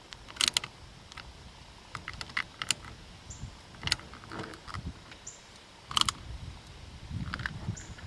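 A hand screwdriver with a security bit tightening small screws into a plastic GFCI plug housing: irregular small clicks and ticks as the bit turns and seats in the screw heads, with handling rustle near the end.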